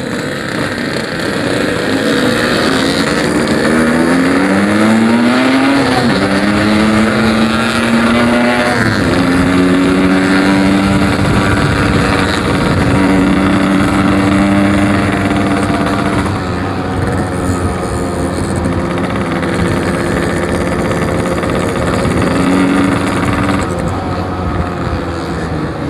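Yamaha RX-King's 135 cc two-stroke single-cylinder engine under way: it revs up twice in the first nine seconds, the pitch climbing and dropping back at each gear change, then runs at a fairly steady pitch as the bike cruises.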